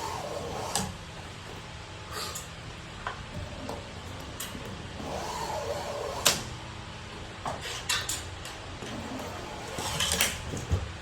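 Hand-handling noise as a shutter cable is wrapped into the grooves of a dome shutter motor's drum: scattered clicks and light knocks with stretches of rubbing, the sharpest click about six seconds in, over a faint low hum.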